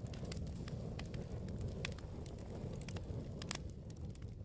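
Fire crackling in a fireplace: scattered sharp pops and snaps over a low, steady rumble of flames.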